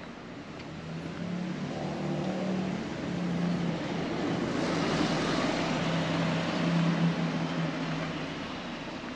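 A car driving past, its engine and tyre noise swelling over several seconds, loudest about five to seven seconds in, then fading away.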